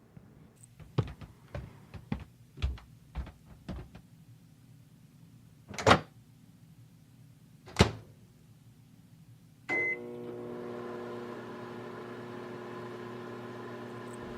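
A run of soft knocks, then two sharp clunks, then a short beep as a microwave oven starts. The oven then runs with a steady hum.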